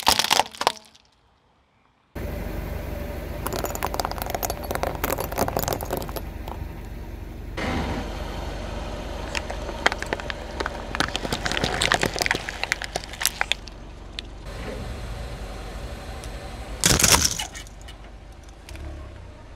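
Car tyre rolling over and crushing brittle objects: a loud crunch at the start, then a steady low rumble of the car with dense crackling and snapping, and another loud crunch near the end.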